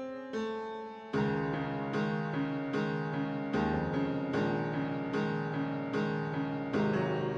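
Background music: two keyboard notes, then from about a second in a steady repeating pattern of keyboard chords, a new chord roughly every 0.8 seconds.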